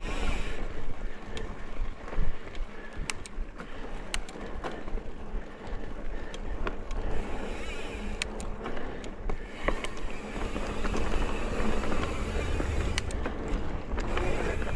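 Mountain bike ridden along dirt singletrack: steady tyre and rolling noise with a low rumble, broken by scattered sharp clicks and rattles from the bike over bumps.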